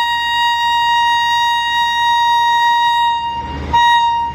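Electric locomotive's horn sounding one long steady note, breaking off briefly near the end and then sounding again, louder.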